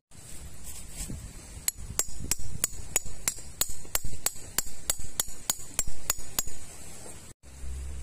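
Metal peg hammer driving a tent peg into the ground: a steady run of about sixteen quick strikes, roughly three a second, each with a short metallic ring.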